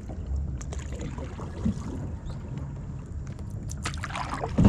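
Paddle strokes in lake water from a paddleboard: splashing, with water dripping onto the board. A louder splash comes near the end.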